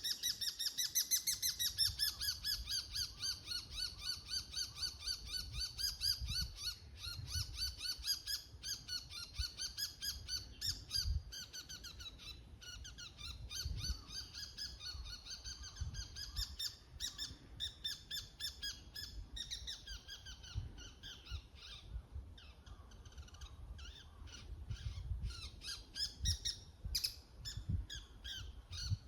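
Bull-headed shrike giving its shrill 'kii-kii' high call (takanaki), the autumn territorial declaration: long runs of fast repeated notes, breaking into shorter, sparser bouts after about ten seconds.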